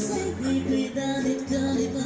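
Background music with held, changing notes.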